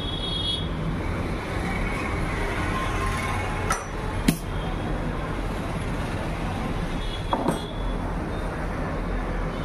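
Steady street traffic noise, with a few sharp metallic clicks from parts of a sewing machine being handled: two about four seconds in and two more a few seconds later.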